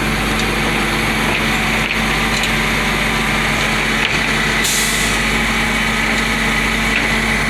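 Flatbed tow truck running with its hydraulics engaged as the winch pulls a toolbox up the bed: a steady engine drone under a constant high whine. There is a brief hiss about five seconds in.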